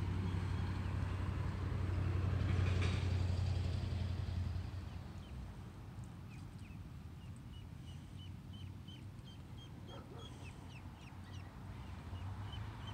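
Ducklings peeping: a run of short, high chirps, a few a second, through the second half. A low steady hum is loudest over the first four seconds, then drops away.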